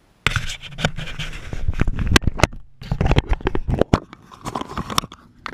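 Handling noise of a small action camera being picked up and gripped close to its microphone: fingers scraping and rubbing on the housing, with a rapid, irregular string of sharp clicks and knocks from a metal key ring and key fob against it. It starts abruptly about a quarter second in and comes in uneven flurries, with a brief lull just before the middle.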